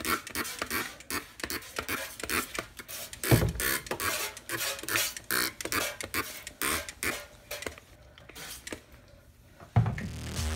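Trigger spray bottle of cleaner sprayed in many quick hissing squirts over a stainless steel sink, with a knock about three seconds in. Music starts near the end.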